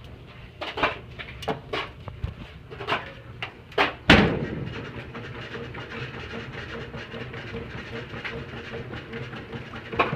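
Top-loading washing machine: a few light knocks and clunks as the plush toys are put in, then about four seconds in a sudden thump and the machine starts running with a steady whooshing hum.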